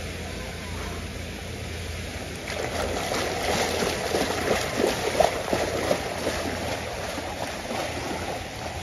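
Pool water splashing and churning as a person runs through it waist-deep. It starts about two and a half seconds in, is loudest in the middle and eases off toward the end.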